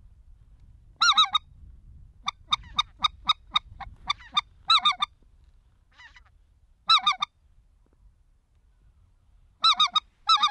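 Specklebelly (greater white-fronted goose) calling: about five loud bursts of quick, high clucks and laughing yodels, from two or three notes to a rapid run of about four a second, with pauses between.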